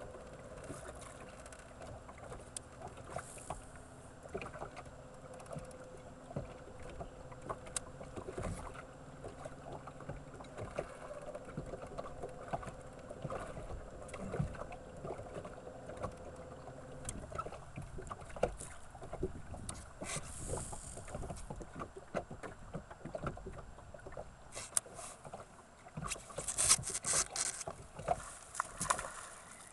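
Water lapping and knocking against a bass boat's hull, with a low steady hum that stops a little past halfway. Near the end there is a brief whirring rush as a cast goes out and line pays off a baitcasting reel.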